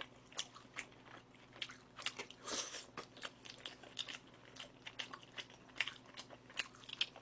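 Close-miked chewing of battered fried pork in sweet-and-sour sauce (tangsuyuk): quiet bites with small crunches and wet mouth clicks scattered throughout.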